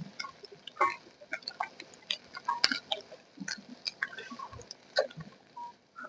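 Pot of chicken stew cooking, giving off irregular small pops and crackles, a few a second.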